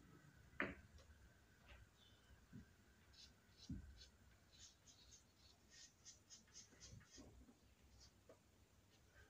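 Faint carom billiard sounds: a sharp ball-on-ball click about half a second in, and a dull knock a few seconds later as the balls come to rest. These are followed by a run of quick, scratchy strokes from a cue tip being chalked.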